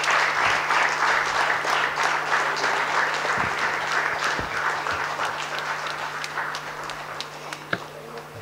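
Audience applauding, a dense round of clapping that gradually dies away, over a faint steady low hum.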